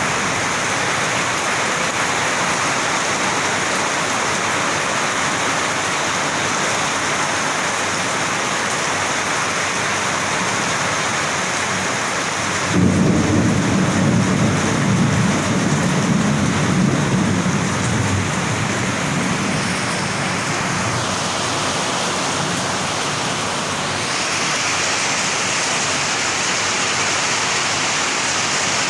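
Steady heavy rain in a thunderstorm. About 13 seconds in, thunder breaks suddenly and rumbles low for about five seconds before fading back under the rain.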